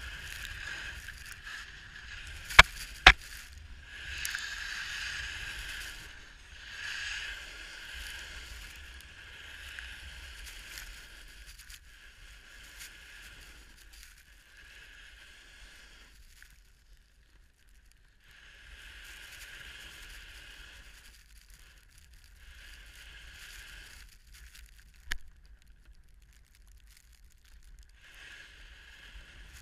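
Snowboard sliding and carving over snow, a hiss that swells during turns and drops away in a few quieter stretches. Two sharp clicks about three seconds in, louder than the rest, and a fainter click later on.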